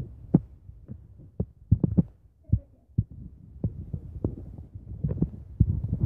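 Irregular soft thumps and knocks, a few a second, from a handheld camera being gripped and moved about.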